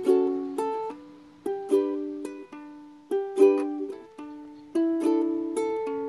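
Solo ukulele strumming chords in a slow, lilting rhythm, with no singing. Each strum rings out and fades before the next, some strums coming as quick pairs.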